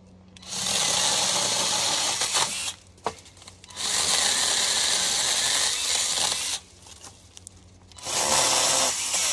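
Cordless electric mini chainsaw run in three bursts of a few seconds each, the chain cutting wood, with a sharp click between the first two bursts.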